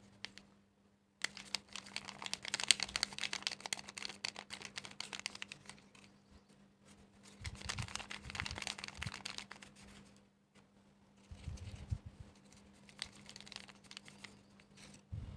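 Faint crinkling and rustling of folded paper being handled, in three spells of quick small clicks with short pauses between.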